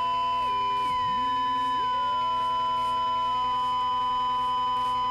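Intentional audio feedback loop in Ableton Live, run through the return track's effects, holding as a cluster of pure electronic tones. One loud tone stays fixed while the others shift: a high one steps downward in stairs over a few seconds, and a middle one dives low about a second in, then climbs back up in steps.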